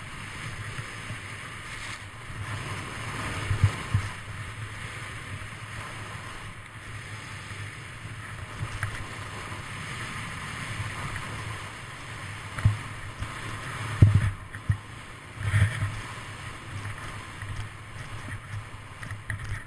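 A snowboard sliding and carving over snow, a steady scraping hiss with wind buffeting the camera microphone, and a few sharp thumps as the board hits bumps, the loudest about fourteen seconds in.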